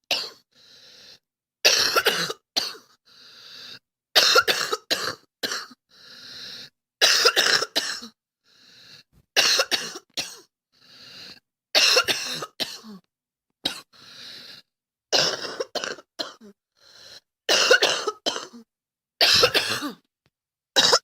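A girl coughing over and over, in repeated bouts of two or three short coughs about every two to two and a half seconds.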